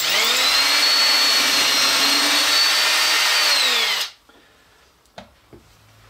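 Ridgid 18V cordless drill boring a 1/4-inch dowel hole through a doweling jig to a drill-collar stop. The motor runs at a steady high whine for about four seconds, then winds down with falling pitch and stops. Two light knocks follow.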